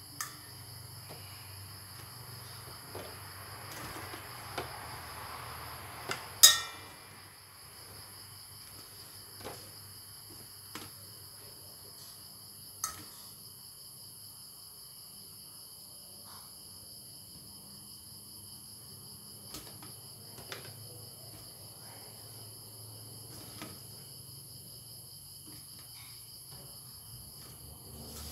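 Crickets trilling steadily, with scattered clinks and taps of a metal utensil against a stainless steel bowl and plate as fried fish balls are moved onto the plate. One sharp clink about six and a half seconds in is the loudest, ringing briefly.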